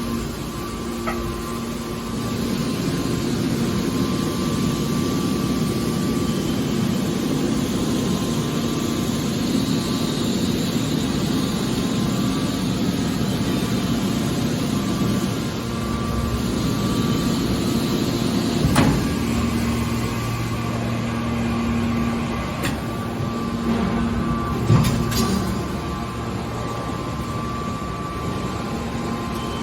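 Hydraulic car baler running: the steady hum of its hydraulic power unit, with two sharp metal knocks, about 19 and 25 seconds in.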